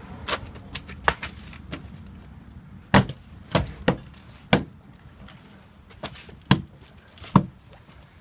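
Door trim panel of a 2005 Subaru Impreza being pressed home, its plastic retaining clips popping into the door: about ten sharp, irregularly spaced pops and knocks, the loudest about three seconds in and again near the end.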